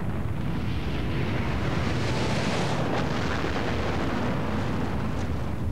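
Deep rumbling roar with a rushing hiss that swells to a peak about halfway through and then dies away: a blast-like sound effect.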